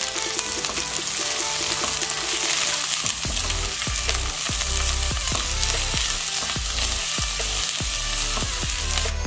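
Shredded cabbage and carrots sizzling as they stir-fry in a nonstick pan, with a spatula stirring through them. The sizzle stops abruptly near the end, and faint background music with a beat runs underneath.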